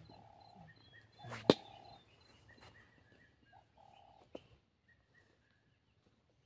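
Faint bird chirps, short high notes scattered through, with a sharp loud click about a second and a half in and a lighter click a few seconds later.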